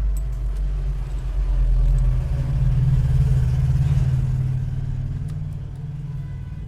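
Low engine rumble, like a motor vehicle running close by, swelling to its loudest in the middle and fading toward the end.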